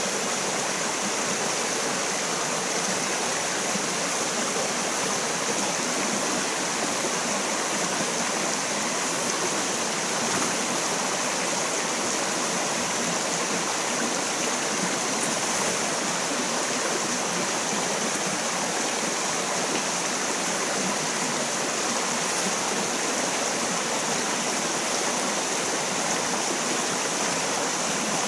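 Shallow rocky stream running over stones: a steady, unbroken rush of water.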